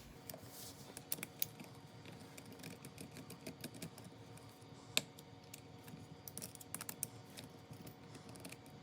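Faint, irregular small clicks and taps of a hand tool and screws as engine mounting screws are put into the frame of a nitro RC truck, with one sharper click about five seconds in.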